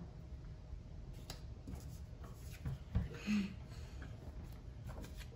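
Quiet room with a few soft taps and light rustles as small cardboard cards are picked up and set down on a cloth-covered table, and a brief faint murmur about three seconds in.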